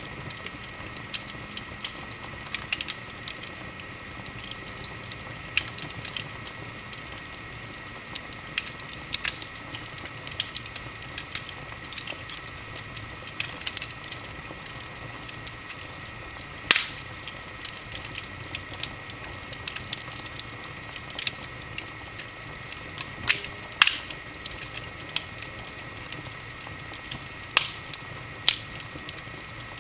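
Wood fire in an open fireplace crackling: a steady stream of small pops with a few louder snaps, over a soft steady hiss.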